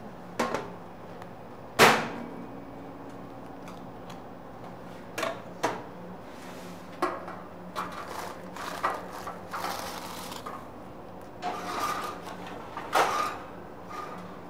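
Kitchen clatter of baking pans and utensils being handled: a sharp knock about two seconds in, then scattered taps and clinks, over a steady low hum.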